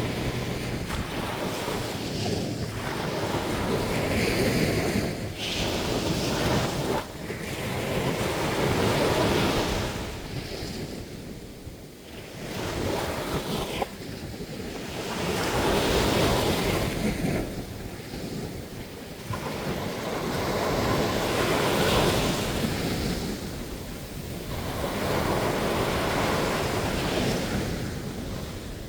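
Sea waves breaking on a beach, each surge swelling and then washing back, about every five to six seconds.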